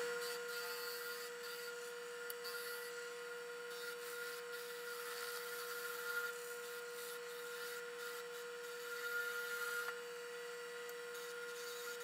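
Wood lathe spinning a mesquite pen blank while a skew chisel shaves it, sped up four times, so the motor's hum is a steady high tone over the hiss of the cutting.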